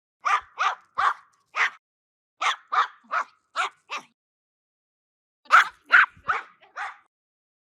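Angry dog barking in three quick runs of four or five sharp barks each, with short pauses between the runs.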